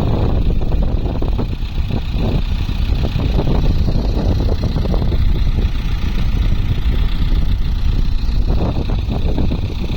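Diesel engine of a JCB backhoe loader running loud and steady while it works soil, a deep continuous rumble.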